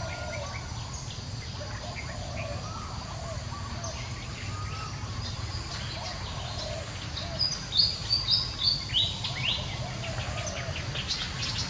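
A run of about five short, high chirping calls a little after the middle, then a quicker flurry of fainter chirps near the end, over steady outdoor ambient noise with faint calls in the background.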